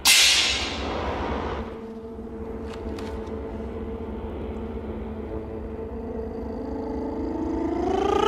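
Contemporary chamber music for voice, bassoon, accordion and percussion: a sudden loud percussion stroke rings and dies away over about a second and a half, leaving steady held low tones from the ensemble. Near the end a voice begins sliding upward in pitch.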